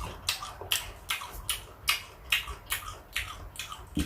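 Crunchy sour fruit being chewed, with about three crisp crunches a second.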